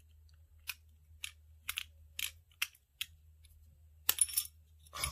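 Light, sharp clicks of a small reel wrench working the handle nut on a Daiwa Tatula 100 baitcasting reel, about one every half second, with a louder clatter of clicks a little after four seconds in.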